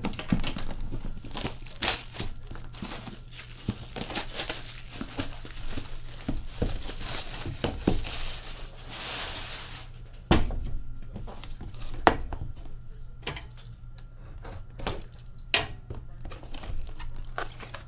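Clear plastic shrink wrap being torn and pulled off a cardboard trading-card box, crinkling loudly. Two sharp knocks come about ten and twelve seconds in, with lighter crinkling and handling clicks after them.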